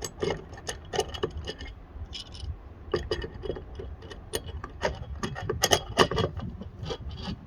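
Metal parts clinking, knocking and scraping as an LED light pod is handled and fitted onto its steel mounting bracket: an irregular string of sharp clicks and knocks.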